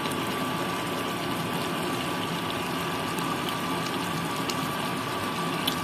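Tomato-based chicken stew simmering in a frying pan on a gas burner: a steady bubbling hiss.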